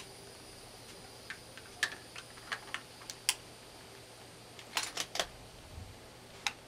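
Faint scattered clicks and light taps of handling noise, a few at a time, with a small cluster about two-thirds of the way in, as shooting glasses and ear protection are put on and the rifle readied.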